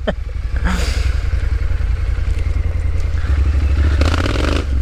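Triumph Street Scrambler's 900 cc parallel-twin engine running as the motorcycle rides a rough dirt track, growing louder near the end.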